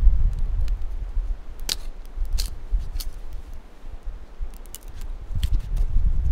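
Small wood campfire crackling, with a few sharp pops, over a low rumble of wind on the microphone that eases in the middle and picks up again near the end.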